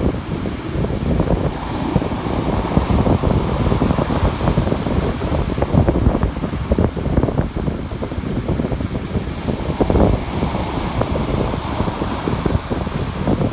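Strong wind buffeting the microphone, a continuous rough low rumble that gusts and eases.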